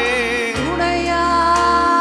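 A man singing a slow Tamil Christian worship song, holding long wavering notes over sustained accompaniment chords, with a change in the bass about half a second in.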